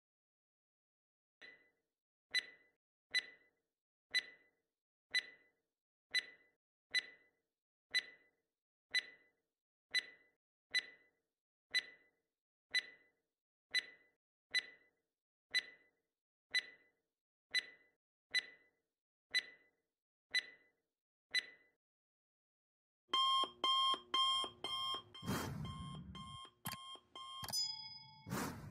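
Countdown-timer sound effect: a clock ticking about once a second for some twenty seconds, then a loud alarm-clock ringing for about five seconds as the time runs out, with a sharp stroke at the very end.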